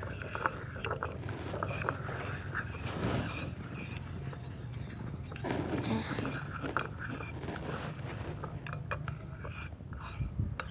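Spoon stirring a detergent-and-powder mixture in a bowl, with light clicks of the spoon against the bowl that become more frequent near the end.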